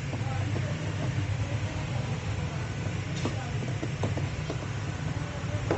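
Steady low rumble in the background, with a few light clicks and taps from a screwdriver working the screws of a plastic battery hold-down bar in a kids' ride-on car, most of them in the second half.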